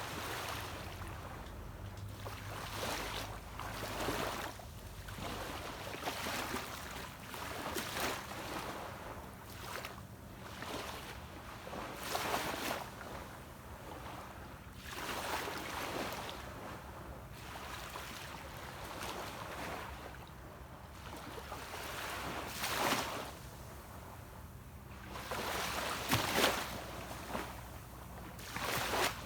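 Small waves breaking and washing up a beach, one swell after another every few seconds, with a louder one near the end. Under them runs the steady low hum of a distant boat's engine.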